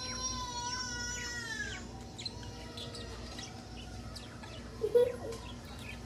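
Budgerigars chirping in short, scattered high chirps. The first two seconds hold a drawn-out pitched sound that fades away, and about five seconds in there is one louder, lower chirp.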